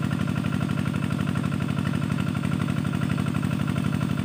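Small engine driving an irrigation water pump that draws from the river, running steadily with an even, rapid pulsing beat.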